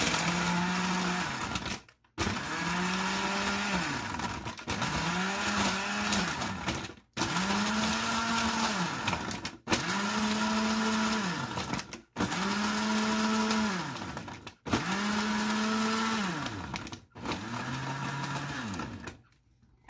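Electric countertop blender run in eight short pulses of about two seconds each, the motor whirring up to speed and winding down each time, blending cooked strawberries with caramel syrup.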